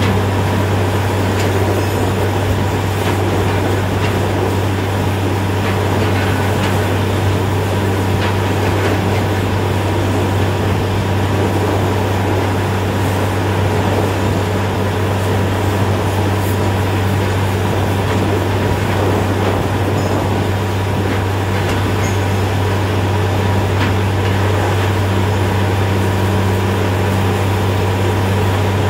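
Truck-mounted borewell drilling rig running steadily during drilling, its engine and air compressor giving a constant low hum, with a steady rushing hiss of compressed air blowing water and cuttings out of the bore.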